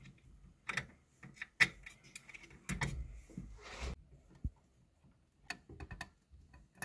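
Faint, irregular small clicks and scrapes of an Allen wrench turning screws out of a laser engraver's head mount.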